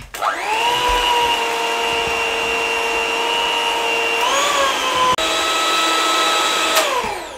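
Electric hand mixer running steadily with a motor whine as its beaters whip cream and cooked custard together. The pitch rises a little about four seconds in. After a brief break it runs again, then its pitch falls as the motor winds down near the end.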